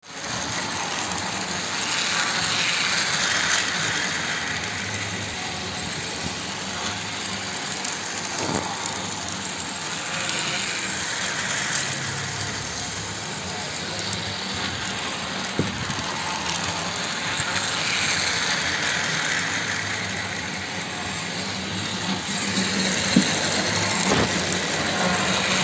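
Battery-powered toy train running round a circular plastic track: its small electric motor whirs and its wheels rattle on the track. It is steady, growing louder and then fading again about every eight seconds as it passes close by.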